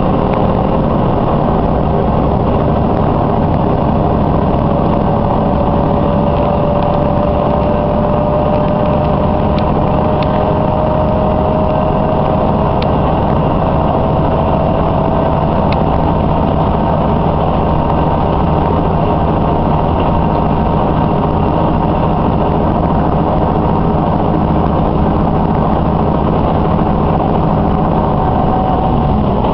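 Diesel railcar running at speed, heard from inside the car: a steady engine and wheel-on-rail rumble with a thin whine that slowly rises in pitch over the first half, as the car picks up speed. Right at the end the whine drops away sharply.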